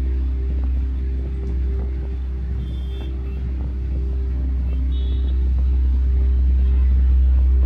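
Steady low rumble of a car driving on city roads, with a couple of faint short high tones about three and five seconds in.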